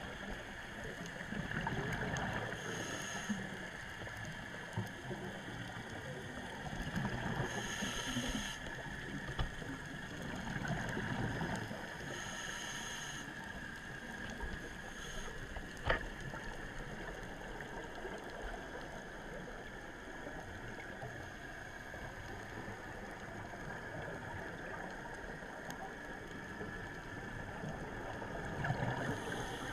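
Underwater scuba-dive sound: a diver breathing through a regulator, with a hiss and a low bubbling rush of exhaled air every four to five seconds. It is steadier through the second half, with one sharp click about halfway through.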